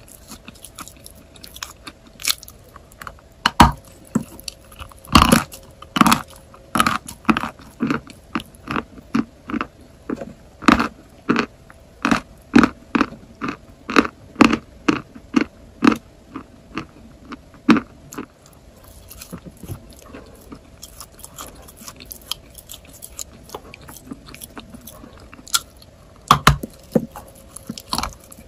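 Dry chalk being bitten and chewed close to the microphone: sharp, crisp crunches coming about two a second, falling quieter for several seconds after the middle, then a few loud fresh bites near the end.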